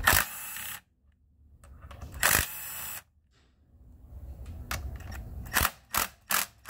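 Milwaukee cordless driver spinning out 8 mm bolts, in two short runs under a second each, the first at the start and the second about two seconds later. Near the end come a handful of short, sharp clicks.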